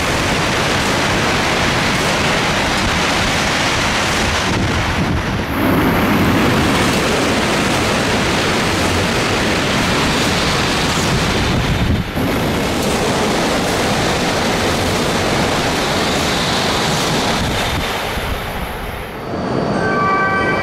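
E5 and E6 series Shinkansen bullet trains passing a station platform at high speed: a loud, steady rush of air and wheels, broken twice by abrupt changes. It dies down shortly before the end.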